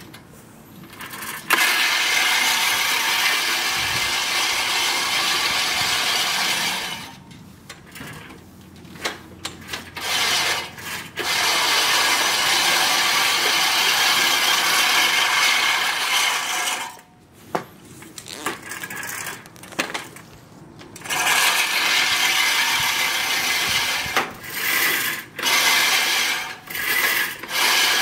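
Sun Joe reel lawn mower cutting tall grass: the spinning reel blades whir and snip in passes several seconds long, with short pauses between them that hold a few sharp clicks.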